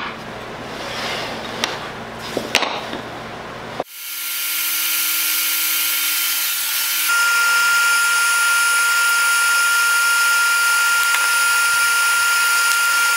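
Light knocks and rubbing of wooden pieces being handled on a table-saw sled. About four seconds in, a shop machine motor takes over, running steadily with a high whine and hiss, and it grows louder about seven seconds in.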